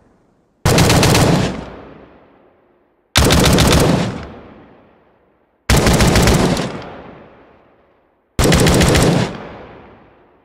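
M16 rifle firing four short bursts of automatic fire, about two and a half seconds apart, each burst a rapid string of shots that trails off in a fading echo.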